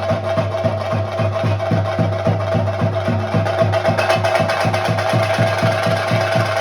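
Chenda drums beating a fast, even Theyyam rhythm of about five strokes a second, over a steady ringing tone.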